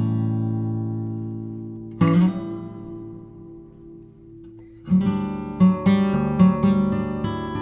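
Background acoustic guitar music. A chord rings and fades, another is struck about two seconds in and dies away, then a quicker picked pattern starts a little past the middle.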